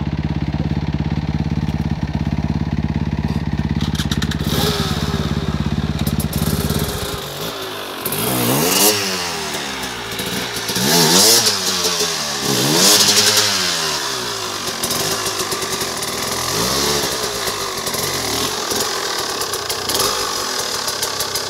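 An engine runs steadily for about the first seven seconds, then a two-stroke enduro motorcycle revs up and down several times as it is ridden up a steep muddy climb, settling to a steadier run toward the end.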